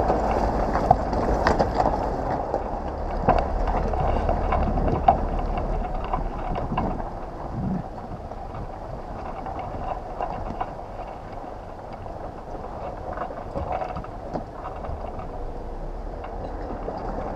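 An off-road vehicle driving slowly over a stony dry riverbed track: steady running noise with frequent knocks and rattles as the tyres go over rocks. It gets quieter about seven seconds in, where the track turns to sand.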